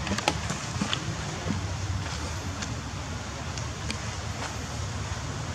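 Steady outdoor rumble and hiss, with a handful of faint short clicks in the first second and again around the middle.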